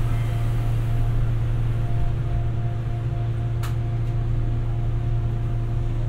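Running noise heard inside a Busan Metro 2000 series subway car: a steady low rumble with a faint steady hum above it. A single sharp click comes about three and a half seconds in.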